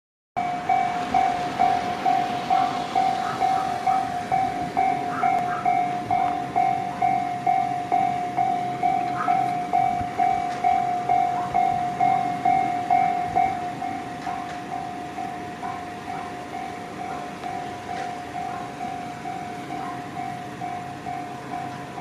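Japanese railway level-crossing warning bell ringing, a repeated electronic clang about twice a second. It becomes noticeably quieter about 14 seconds in.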